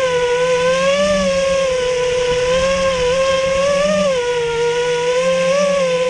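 BR2205 2300KV brushless motors and propellers of a Martian II FPV quadcopter whining steadily in flight, the pitch rising and dipping slightly as the throttle changes.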